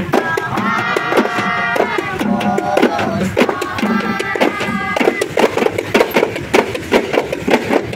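Frame drums (rebana) beaten by hand in a quick, steady rhythm as the group walks. For the first five seconds or so a melody of held, wavering notes sounds over the drumming.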